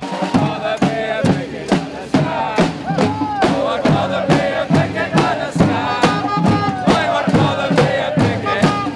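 A protest crowd chanting loudly over a steady beat of sharp strikes, about three a second.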